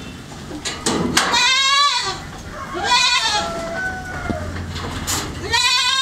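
Young goat bleating three times, each a quavering call that falls in pitch, with a couple of sharp knocks near the first call.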